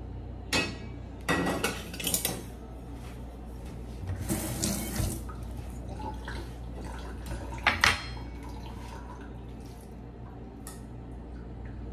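Kitchen handling sounds as raw chicken is tipped from a dish into a nonstick frying pan: a few knocks and clatters of the dish and utensils against the pan, with a short hiss near the middle. The pan is not yet hot enough to sizzle.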